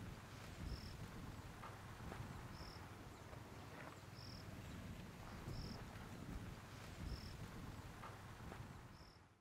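Faint background ambience: a short high chirp repeats about every one and a half seconds over a low rumble, and everything fades out at the end.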